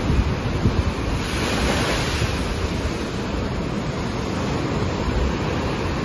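Ocean surf breaking over rocks and white water rushing across the rocky shore, a continuous churning wash with deep low rumbles. A wave washes in with a louder, brighter hiss about one to two seconds in.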